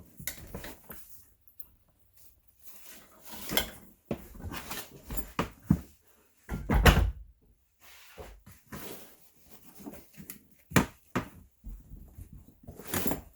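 Irregular handling noises from work on a leather tool belt and its drill hook: scattered knocks, clicks and rustles, with a heavier thump about seven seconds in.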